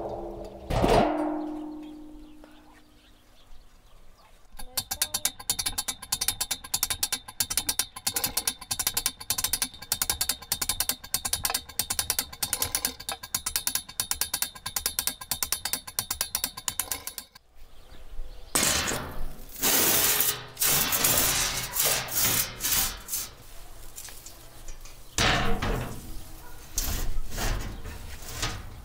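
A metal clang that rings on briefly, then the steady rapid clicking of a hand-cranked winch lowering a wheel rack of chicken wings on chains into a pit. After that, heavy flat metal lid plates are dragged and scraped over the pit's brick rim.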